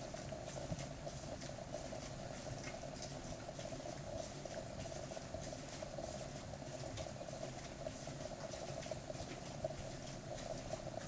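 Faint steady hum with small soft clicks and smacks scattered throughout.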